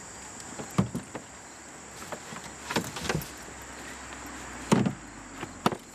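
Bags and gear being shifted in an open car trunk: about half a dozen knocks and thumps, the loudest about a second in and near the end, over a steady high chirring of crickets.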